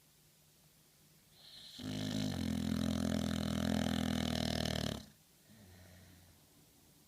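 A sleeping dog snoring: one long, drawn-in snore of about three seconds that builds a little over a second in and stops abruptly, followed by a faint breath.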